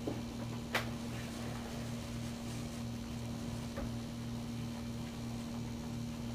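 Steady low electrical or mechanical hum with a slow, even throb, like a small motor or appliance running, and a single sharp click a little under a second in.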